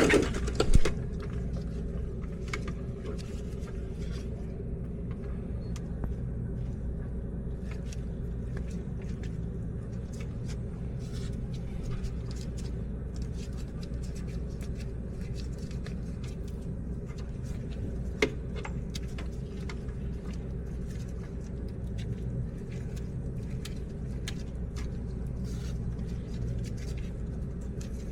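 Steady low mechanical hum, with scattered light clicks and taps and one sharper tick about eighteen seconds in.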